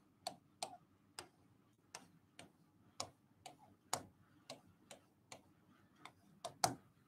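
Stylus tapping on an interactive smart-board screen as short strokes are drawn: a string of faint, irregular clicks about two a second, with one louder click near the end.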